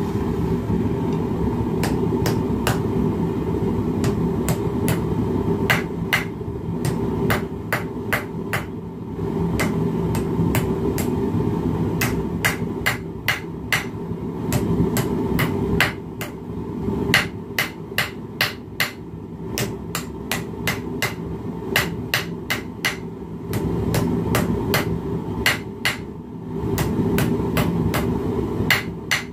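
Hand hammer striking thin hot steel on a bench vise's anvil face, in runs of quick blows with short pauses, drawing the metal out to a point. Under it runs the steady rushing of the lit gas forge burner.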